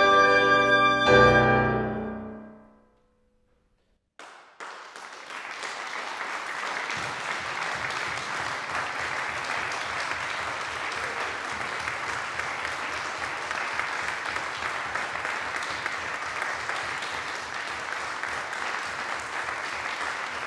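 Flute, clarinet and piano play a final chord that rings out and dies away. After a short silence, audience applause starts about four seconds in and goes on steadily.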